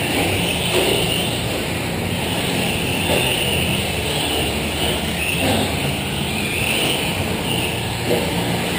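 Electric 4x4 short-course RC trucks racing: a high motor and drivetrain whine that rises and falls every second or two as the trucks accelerate and brake, over a steady low hum.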